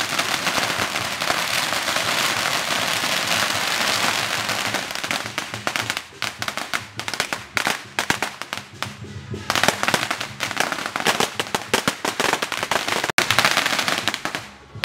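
Firecrackers going off: a dense, continuous crackle for about the first five seconds, then scattered sharp pops and bangs, and another dense run of crackling near the end.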